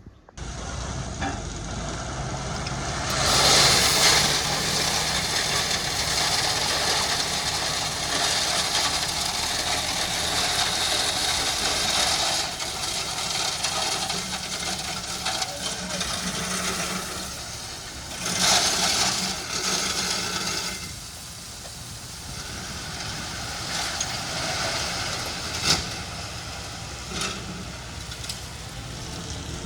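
A heavy earthmoving machine's engine running, with a broad rushing noise that swells louder twice, about three seconds in and again near the middle.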